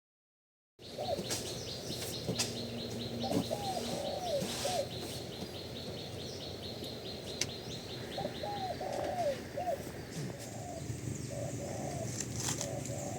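Doves cooing in short phrases, several times over, in quiet outdoor ambience, starting about a second in. A fast high-pitched trill runs through the first half.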